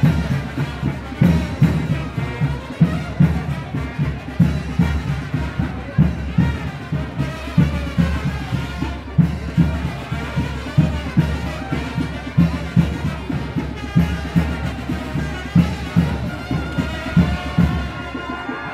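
Mexican brass banda playing a chinelo son, trumpets and trombones over a steady bass-drum beat.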